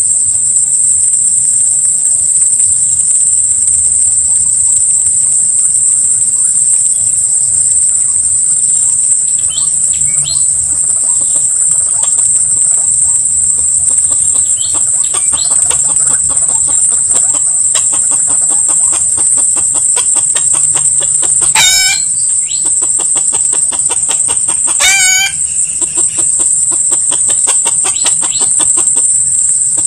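A steady, high-pitched insect drone runs throughout, with a few brief bird chirps, and near the end two short junglefowl calls a few seconds apart.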